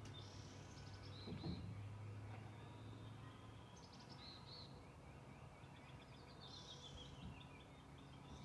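Faint forest birdsong: a songbird sings three short, high phrases a few seconds apart, the last one ending in a falling trill. A low, steady hum runs underneath.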